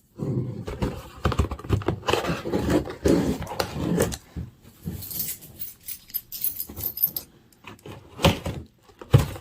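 Boxed action figure being handled to open it: irregular rustling, rattling and knocking of the packaging, with a couple of sharper knocks near the end.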